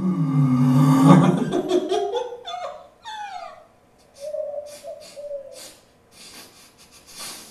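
Voice-like, animal-like calls from a theatre performance: a low wavering tone, then several falling whistle-like glides, then scattered sharp clicks in the second half.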